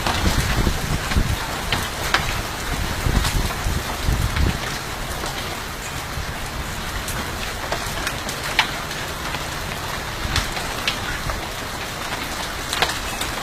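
Heavy hail coming down as a steady dense patter, with scattered sharp cracks of single hailstones striking hard surfaces.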